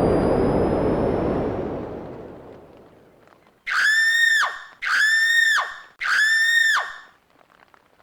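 A rushing noise fades away over the first three seconds. Then come three loud, high-pitched calls, each just under a second long, held level and dropping in pitch at the end, about a second apart.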